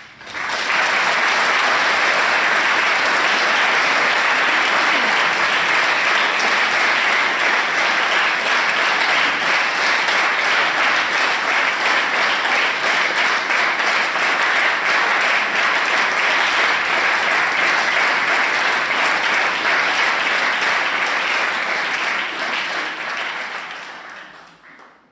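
Audience applauding steadily; the applause fades out near the end.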